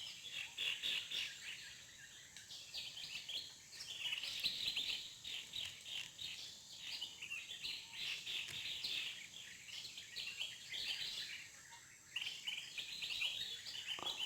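A dense chorus of many birds chirping and calling at once, short high calls overlapping without a break, over a faint steady high buzz.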